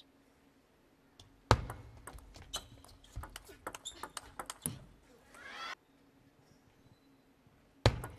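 Table tennis rally: sharp clicks of the celluloid ball off rackets and table, irregular, with a loud hit about a second and a half in, then a brief rising crowd murmur that cuts off suddenly. Another sharp hit comes near the end.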